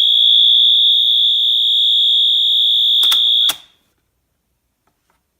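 Wheelock MT horn strobe's electronic horn sounding a loud, steady, high-pitched continuous tone. About three seconds in come two sharp clicks, and the horn cuts off suddenly about three and a half seconds in.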